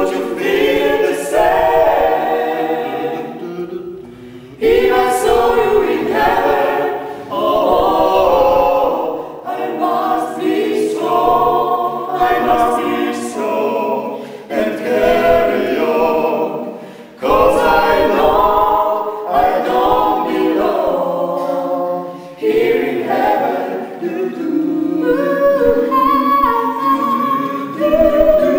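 Mixed five-voice a cappella vocal ensemble, men and women, singing in harmony without accompaniment. The phrases break off briefly about four, seventeen and twenty-two seconds in.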